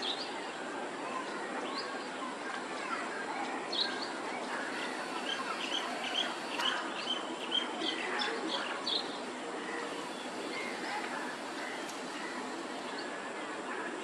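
Small birds chirping in short, high notes, coming thick and fast in the middle, over a steady outdoor background noise.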